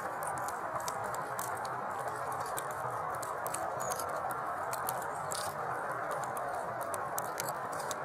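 Rain pattering: a steady hiss with many scattered sharp ticks.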